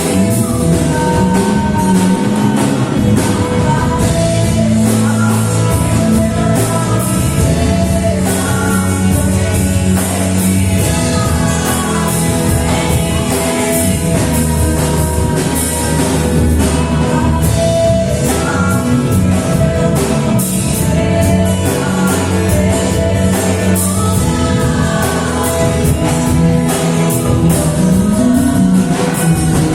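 Gospel worship song: singing over a band with guitar, bass and drums, steady throughout.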